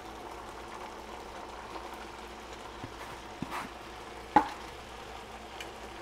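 Tomato salsa with chunks of beef, pork, carrot and potato simmering in a pot, a steady bubbling sizzle. A few light taps and, a little past four seconds in, one sharp clink of a utensil against the pot.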